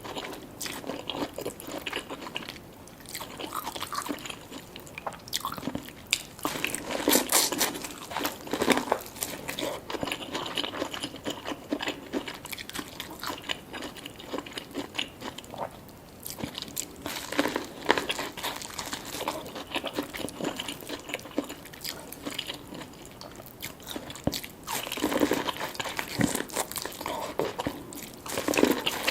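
Close-miked eating of a seafood boil: repeated biting and chewing with wet mouth sounds and crunchy bites. The louder bouts of biting come every several seconds.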